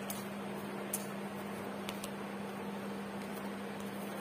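Quiet room tone: a steady low electrical hum over hiss, with a few faint ticks about a second apart in the first half.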